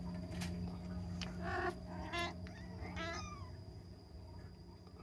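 Kitten meowing three times in quick succession, short high-pitched calls, the last one falling in pitch, over a steady low hum.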